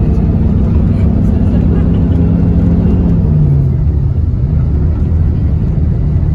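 Engine drone and road rumble of an intercity coach heard from inside the passenger cabin while under way. About three and a half seconds in, the engine's steady hum rises slightly and then drops away, leaving the lower rumble.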